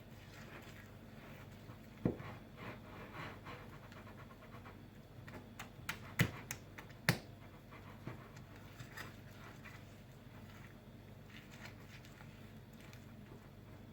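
Small whisk (a blender's whisk attachment) stirring thick kefir pancake batter in a bowl: soft repeated scraping swishes, with a few sharp knocks against the bowl, one about two seconds in and two close together a few seconds later.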